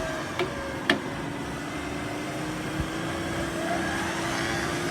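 Electric 4WD winch motor running under load with a steady hum, pulling the stuck vehicle out of mud. Two sharp clicks come within the first second.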